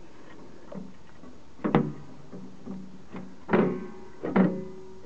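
Metal clanks and knocks, each with a brief ring, as the bridge rectifier's metal plate is worked back into the Sealey 180 MIG welder's sheet-metal cabinet. Three louder knocks come about two seconds in, past three and a half seconds, and near four and a half seconds.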